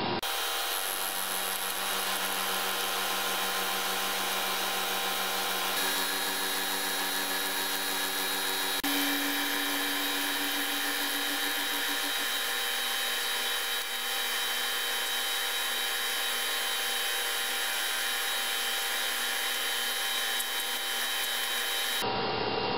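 Milling machine running steadily with an end mill cutting into a metal workpiece: a continuous machine hum made of several fixed tones over a noisy hiss, whose mix shifts a few times.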